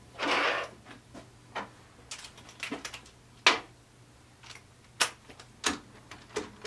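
Sharp clicks and knocks of an air impact wrench and its socket being handled and fitted onto the bearing-cap bolts of a Ford 9-inch differential, about half a dozen separate clacks, after a short rushing sound at the very start. The wrench is not run.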